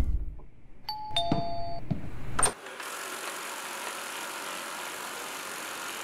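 Two-note electronic chime, a higher note then a lower one, about a second in, like a doorbell's ding-dong. A sharp click follows a little later, then a steady, even hiss.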